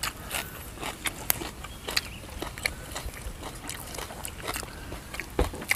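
People chewing food close to the microphone: an irregular scatter of small mouth clicks and smacks.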